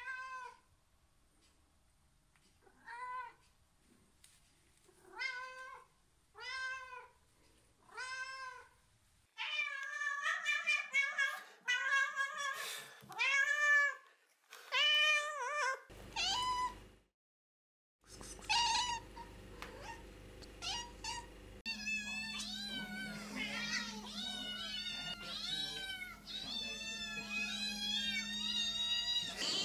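Cats and kittens meowing to demand food. First a single kitten gives separate meows, each rising and falling in pitch, about every second and a half. Then another cat meows faster and louder, and near the end several kittens meow over one another above a steady low hum.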